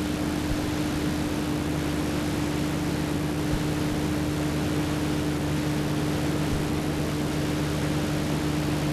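Steady hiss with a constant low electrical hum and no music or speech: the background noise of a silent film transfer.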